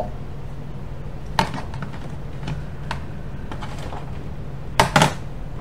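Steady low hum of fan and air-conditioner noise in a small room. A few light clicks and knocks break through, the loudest a sharp double knock near the end.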